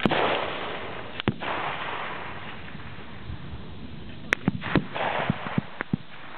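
Full-bore target rifle shots: a sharp report right at the start with a short echoing tail, another about a second later, and a further pair about four seconds in. Lighter clicks and knocks follow near the end.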